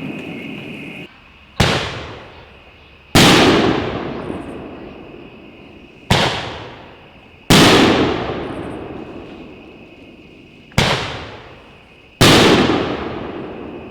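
A 2-inch mortar rack of aerial shells firing three times. Each shot is a sharp launch thump followed about a second and a half later by a louder bang as the shell bursts overhead, and each bang rings out in a long, fading echo.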